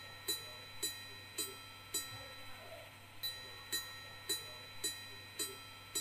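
Jaquet Droz Bird Repeater's minute repeater chiming: evenly spaced gong strikes, a little under two a second, over a steady ringing tone. The strikes stop for about a second just after two seconds in, then resume at the same pace.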